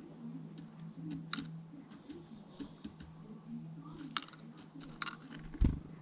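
A chickadee pecking and picking through mixed seed in a wooden platform feeder: a run of sharp, irregular clicks and taps, with one loud thump near the end.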